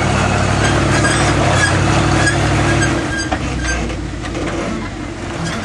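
International Harvester Scout's engine running under load as the rig works over slick rock, with scattered sharp clicks and creaks. The engine sound drops off about three seconds in and stays lower.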